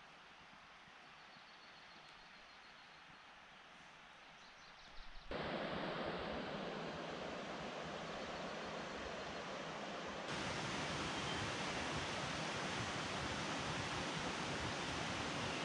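Faint outdoor ambience. About five seconds in, a steady rushing noise starts abruptly, and it gets louder again with a second sudden step near ten seconds in.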